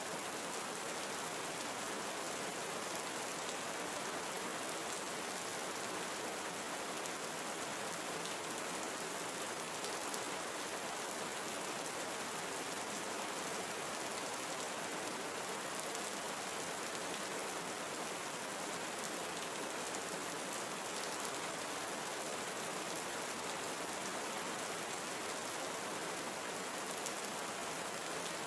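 Steady rain falling in a tropical forest, an even hiss of many drops with faint scattered patters, without let-up.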